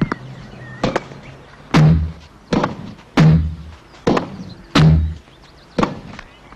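A tennis rally: a tennis ball struck back and forth by rackets, eight hits at a steady pace of roughly one every three-quarters of a second, alternating a sharp crack with a heavier, deeper thud.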